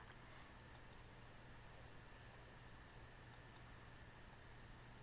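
Near silence with a faint steady hum, broken by a few quiet computer-mouse clicks: one about a second in and two close together past the middle.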